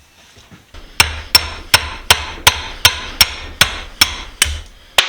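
Hammer blows on a steel pipe wrench held in a vise, driving out the pin that holds the lower jaw: about eleven sharp metallic strikes, evenly paced at a little under three a second, starting about a second in.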